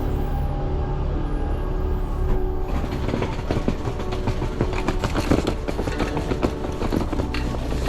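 Steady low rumble of a moving vehicle, with a run of rattles and clacks starting about two and a half seconds in.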